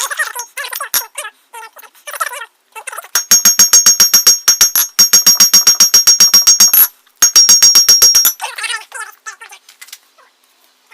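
Hand hammer forging hot 5160 coil-spring steel on an anvil: a fast, even run of blows, several a second, with a high ring off the anvil, in three spells of about two seconds each with short pauses between, drawing the bar out to a taper. Lighter, irregular knocks come before and after the hammering.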